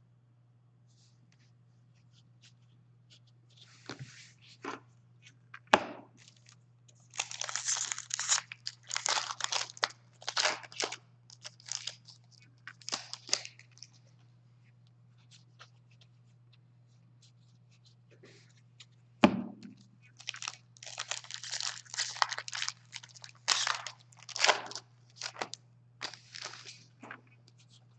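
Foil trading-card pack wrappers being torn open and crumpled by hand, in two bouts of crinkling several seconds long. A few single sharp taps fall between them.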